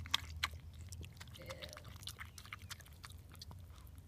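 Maltese mother dog chewing the placenta just after whelping her last puppy: a rapid, irregular run of clicks.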